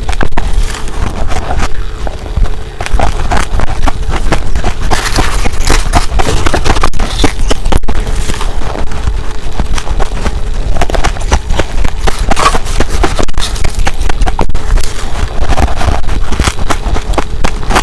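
Close-miked crunching of humidifier ice being bitten: dense, irregular crackling and snapping, over a low rumble.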